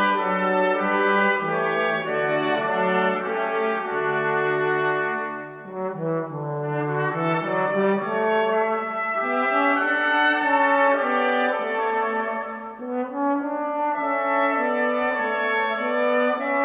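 Brass ensemble playing sustained chords in slow phrases, with short breaks between phrases about six and thirteen seconds in.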